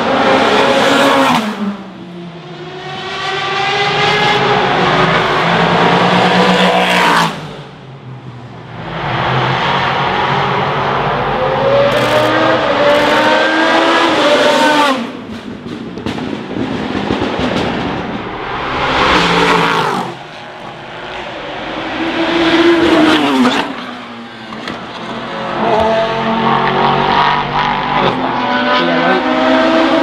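A series of Le Mans prototype race cars passing at speed, one clip after another. Each engine note climbs in steps as the car accelerates and shifts up, then drops away as it goes past.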